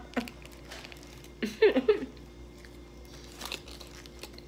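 Close-up eating sounds of a foil-wrapped pita being bitten and chewed, with small clicks and a crinkle of the aluminium foil. A brief voiced sound from the eater about a second and a half in is the loudest moment.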